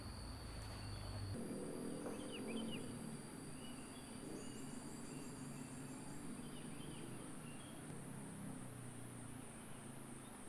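Rural outdoor ambience: insects trilling steadily, a high pulsing buzz and a thinner high whine, with scattered short bird chirps over a faint low hum.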